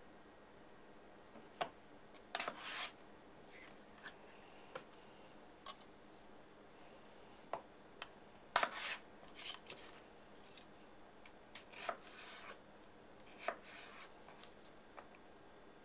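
Kai Pure Komachi 2 chef's knife slicing raw potatoes on a wooden cutting board. Irregular sharp taps of the blade on the board, some drawn out into a short scrape as the blade passes through the potato, come with pauses between the cuts.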